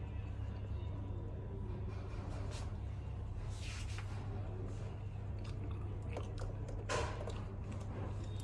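Faint small clicks and scrapes of a precision screwdriver working tiny screws back into an iPhone's speaker bracket, with two brief louder scrapes about midway and near the end. A steady low hum runs underneath.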